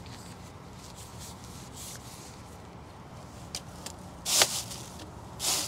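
A grease gun being handled and put back together after a cartridge change: a few faint clicks, then two short hissy rasps about four and five and a half seconds in.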